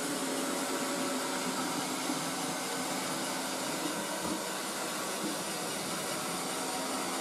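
Robot vacuum cleaner running across a laminate floor: a steady whirring hiss with a faint hum.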